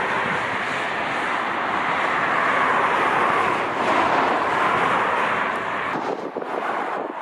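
Jet airliner's engines as it passes, a steady rush that swells for a few seconds and eases off about six seconds in, with wind buffeting the microphone.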